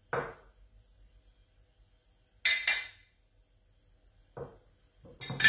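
A metal spoon clinking against a glass bowl while grated cheese is spooned out: a soft knock at the start, two sharp clinks close together about two and a half seconds in, and a louder clatter of clinks near the end.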